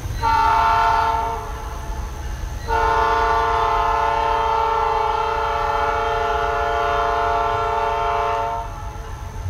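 Diesel locomotive's air horn sounding a chord of several notes: a short blast of about a second, then a long blast of about six seconds, over a steady low rumble.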